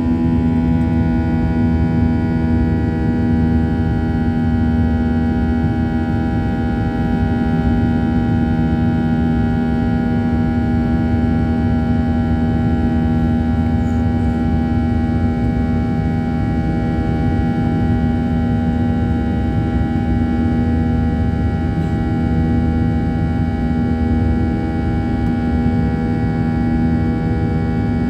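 Cabin noise of a Boeing 737-800 in its climb after take-off: the CFM56-7B turbofan engines running steadily, a loud even noise with a hum of several held engine tones.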